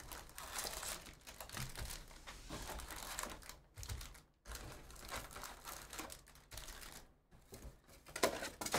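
Plastic wrap crinkling and tearing, with cardboard rustling, as a sealed trading-card hobby box is opened and its packs pulled out. It comes as irregular crackling with a couple of brief pauses.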